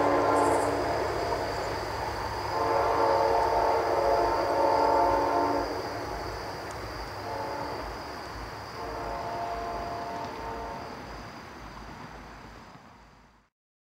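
Receding Amtrak passenger train sounding its multi-chime air horn in separate blasts, in a long, long, short, long pattern like the grade-crossing signal, over a fading rumble of the train on the rails. The horn gets fainter with each blast as the train moves away, and the sound cuts off abruptly near the end.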